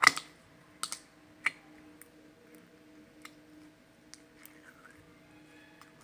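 Slime being pressed and worked by hand, giving sharp clicks and pops: the loudest right at the start, two more close together about a second in, another soon after, then fainter ones, over a faint steady hum.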